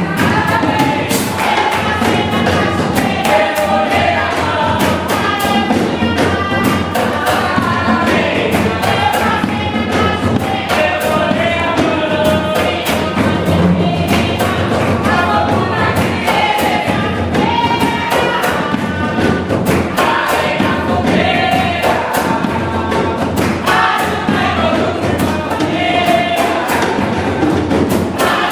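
Jongo rhythm on hand drums played together with a drum kit, under a group of voices singing. The drum strokes are fast and dense, and the singing goes on throughout.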